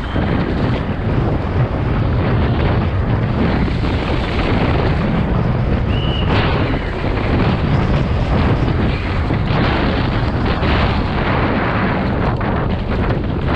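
Downhill mountain bike at race speed: wind buffeting the camera microphone over tyres rumbling on dirt and rock, with constant clattering and knocks from the bike over bumps. A brief high squeal about six seconds in.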